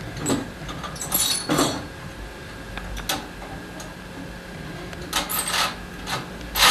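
A few short clinks and scrapes from a small handmade scale-model farm machine being handled, its small parts moved by hand.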